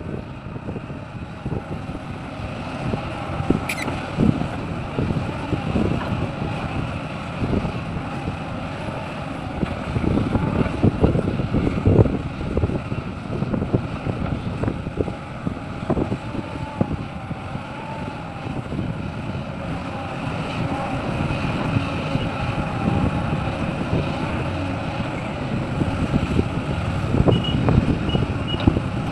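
Heavy diesel machinery running steadily at a mine site, with an uneven, gusty rumble and wind buffeting the microphone. A few short high beeps come near the end.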